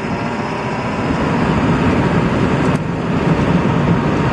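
Steady road and engine noise of a vehicle being driven, heard from inside the cab.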